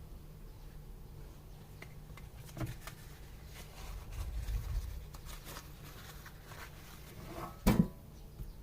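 Small kitchen handling noises: scattered light clicks and taps, with one louder knock near the end.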